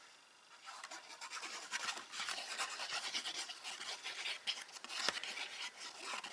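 Glue being rubbed onto the back of a piece of patterned craft paper: dense, scratchy rubbing in quick strokes that starts about a second in.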